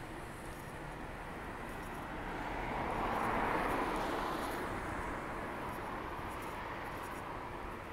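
A car driving past close by, its tyre and engine noise swelling to a peak about three and a half seconds in and then fading, over a steady hum of distant city traffic.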